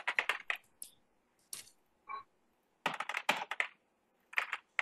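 Computer keyboard keystrokes in four short bursts of quick clicks.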